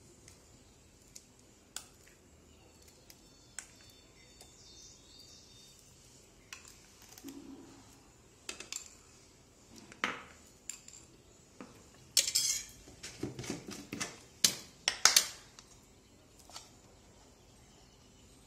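Metal kitchen utensils and cooking vessels clinking and clattering: a few scattered light knocks, then a run of louder clatters about two-thirds of the way through.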